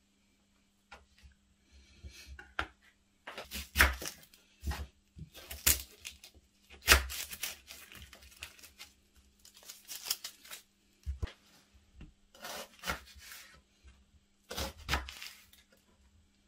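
Kitchen knife cutting an onion on a plastic chopping board and its papery skin being pulled off: irregular sharp knocks of the blade on the board mixed with the tearing of the skin.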